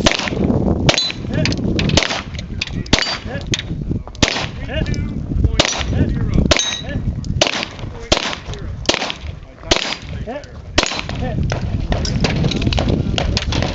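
A string of gunshots fired in quick, irregular succession, about a dozen and a half in all, with a short gap about nine to ten seconds in. Several shots are followed by a brief high ring of steel targets being hit.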